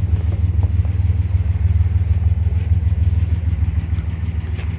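1969 MGC's 2.9-litre straight-six engine idling steadily with an even low rumble.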